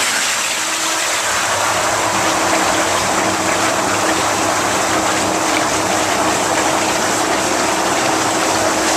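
Jacuzzi whirlpool tub's jets and blower running steadily just after being switched on, churning the bathwater over a constant motor hum.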